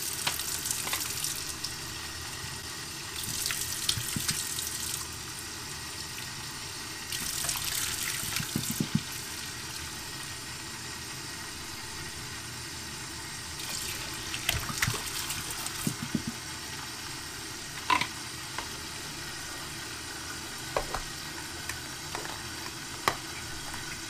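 Kitchen tap running into a sink full of soapy water while plastic stacking cups are washed by hand: a steady flow with louder splashing at times, and a few light knocks of the plastic cups in the second half.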